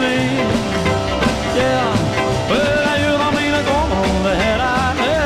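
Rock and roll song with a steady beat, a band playing through a passage between sung lines.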